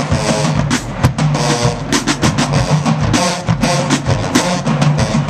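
Music with a busy drum beat over a low, held bass part.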